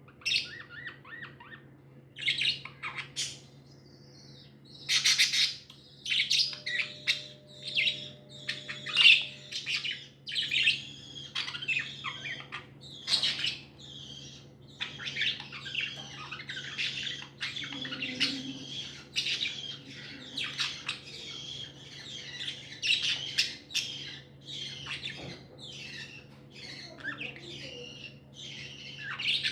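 Pet budgerigars chirping and chattering without pause, several birds calling over one another with frequent short, sharp squawks.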